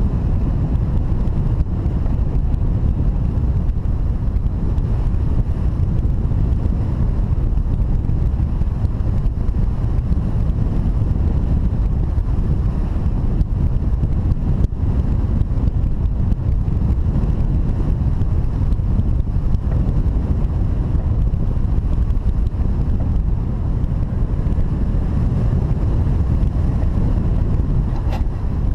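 Wind buffeting the microphone: a loud, steady low rumble of rushing air with no break.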